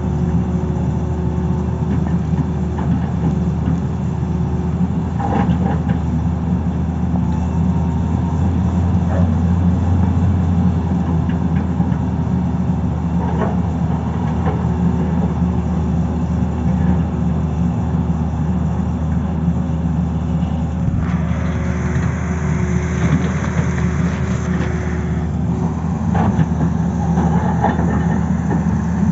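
Tata Hitachi crawler excavator's diesel engine running steadily under working load as the arm and bucket dig, with a steady hydraulic whine and occasional knocks. A hiss rises over it from about 21 to 25 seconds in.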